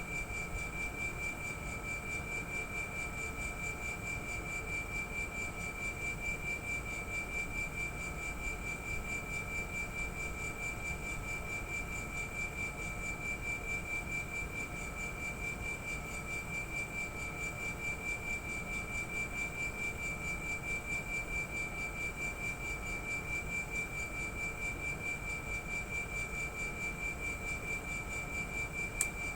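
Air conditioner outdoor unit's compressor running with a steady high-pitched whine over a low hum, the abnormal noise it is being checked for. A short click near the end.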